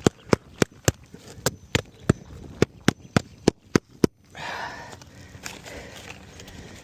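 A hammer striking roofing nails on a shingle roof, about a dozen quick, sharp blows roughly three a second, stopping about four seconds in; then rustling and scuffing on the roof.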